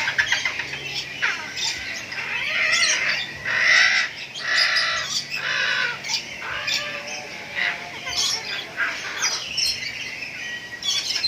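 A crowd of captive birds calling at once: harsh squawks mixed with shorter chirps, overlapping throughout, loudest about four seconds in.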